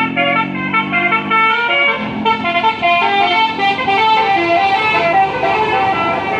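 A bus's basuri musical horn playing a fast 'telolet' melody of short, clear notes that step up and down in pitch.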